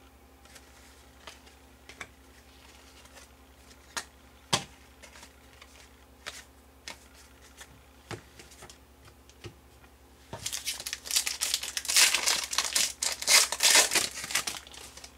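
Foil wrapper of a Panini Contenders hockey card pack being torn open and crinkled: a dense, loud crackling for about four seconds, starting about ten seconds in. Before it come scattered light clicks and taps of cards being handled.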